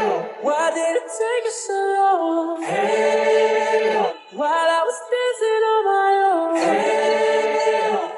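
Background music: unaccompanied vocal singing, several voices in long held notes that glide from pitch to pitch, in phrases of about three to four seconds, with no drums heard.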